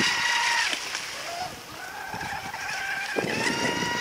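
Brushless RC speed boat under way: the high, steady whine of its Surpass Rocket 3670 2280kv motor and prop fades out under a second in, then climbs back in pitch and returns at full strength near the end as the throttle comes back on.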